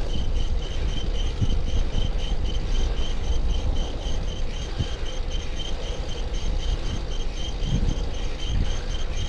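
Bicycle chain running with all its slack taken out, too tight, making a regular high-pitched chirp about five times a second over low wind and road rumble.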